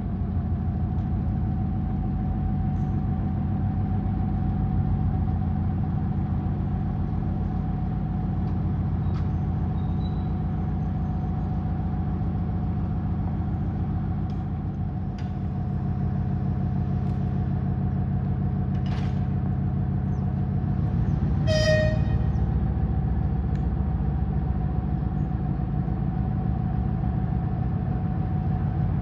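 A 2TE10V diesel locomotive's 10D100 two-stroke opposed-piston diesel running steadily with a deep, rapidly pulsing rumble and a steady whine over it. A single short, high-pitched horn toot sounds about 22 seconds in.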